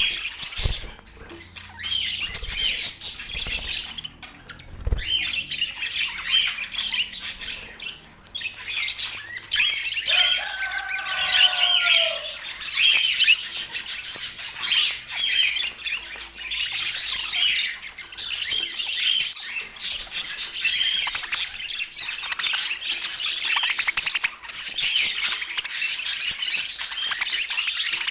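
Budgerigars chattering and chirping continuously, with squawks mixed in and a lower, slightly falling call about ten seconds in.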